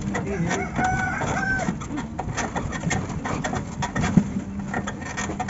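A rooster crowing once, about a second in, over the steady hum and constant rattling of a three-wheeler auto-rickshaw jolting along a dirt road.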